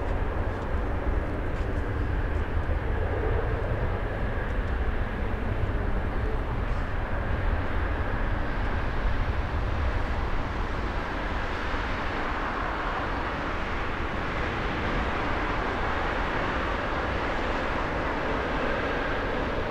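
Cebu Pacific Airbus A320's twin jet engines at takeoff power through the takeoff roll, liftoff and climb-out: a steady rumble with a roaring hiss that grows stronger over the second half.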